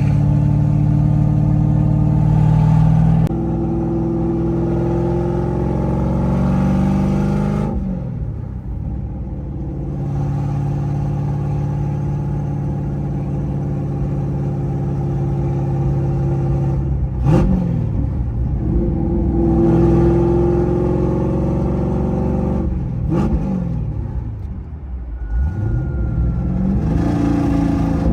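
1992 Ford Mustang engine pulling the car along under a manual gearbox, its pitch climbing as it accelerates and dropping sharply at several gear changes, with a brief sharp click at one of the shifts.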